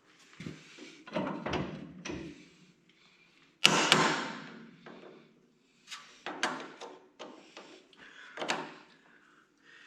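Irregular metal clanks and knocks from a tractor's three-point lift arm being worked off its pivot pin and handled. The loudest clank comes a little under four seconds in and rings on for about a second.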